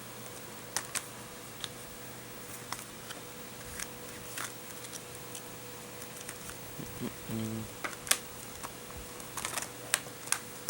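Scattered light clicks and taps from a plastic Blu-ray case and its discs being handled, over a faint steady hum.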